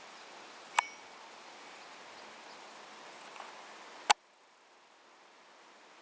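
Two single sharp airsoft gun shots about three seconds apart, the second louder, over a steady hiss. After the second shot the background hiss drops suddenly.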